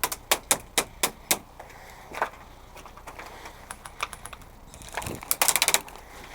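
Airsoft guns firing: a quick string of about seven single shots in the first second and a half, a few scattered shots, then a short, rapid full-auto burst near the end.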